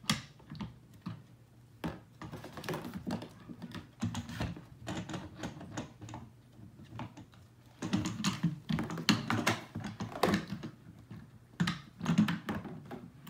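Hard plastic scooter parts of a Morf Board clicking, tapping and knocking against each other and the deck as they are fitted together: an irregular string of sharp clicks, busier in the second half.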